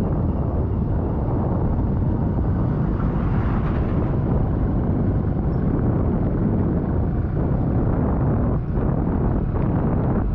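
Steady low rumble of wind buffeting the microphone, mixed with vehicle noise.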